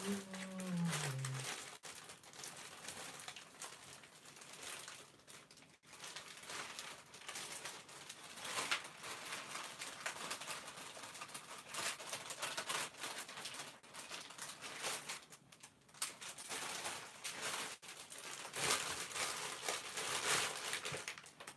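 Rummaging with plastic packaging crinkling: irregular rustles and crackles while a LEGO polybag is searched out. A short hummed note falls in pitch at the very start.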